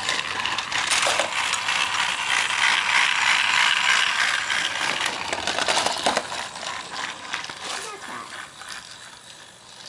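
Battery-powered TrackMaster toy train engine running on plastic track, its motor and gears whirring with a fast clicking rattle. Loud for the first half, then fading away near the end.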